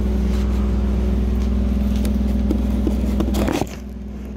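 A steady machine hum with a low buzz, most likely the stick-welding power source running, with a faint crackle over it. A few clicks come just before the hum drops sharply in level about three and a half seconds in.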